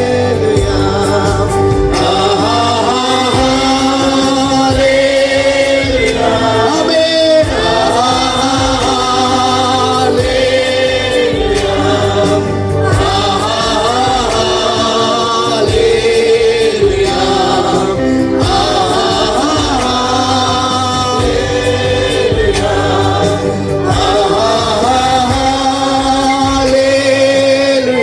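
Gospel worship music: a group of voices singing long, held lines over steady instrumental accompaniment.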